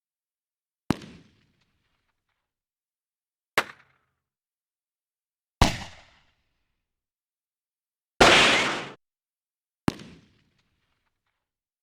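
Five separate pistol gunshot sound effects, each a sharp crack with a short fading tail and dead silence between them. The fourth, about eight seconds in, is a longer, dense burst lasting nearly a second.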